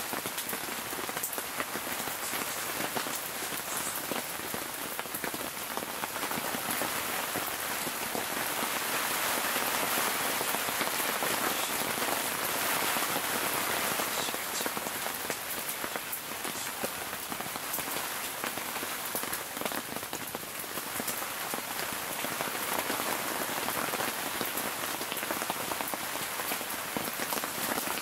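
Heavy downpour falling steadily on a tent, a dense even hiss of rain with many small drop ticks.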